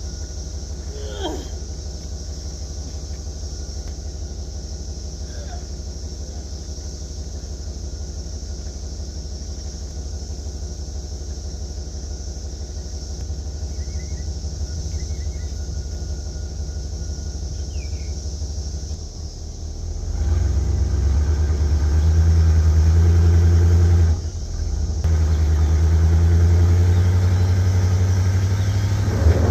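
A 1993 GMC school bus's engine idling with a steady low drone. About two-thirds of the way through it revs up and pulls under load, drops off for a second, then pulls again near the end, as the bus is moved to park level on a slope.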